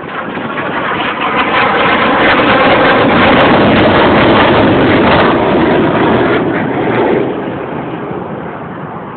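F-22 Raptor's twin Pratt & Whitney F119 turbofan jet engines passing low overhead: loud jet noise that swells over the first two seconds, stays at its loudest until about seven seconds in, then fades.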